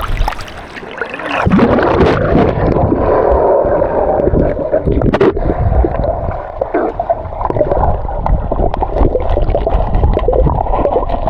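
Mountain river water rushing and gurgling close to the microphone, with a low rumble and scattered knocks.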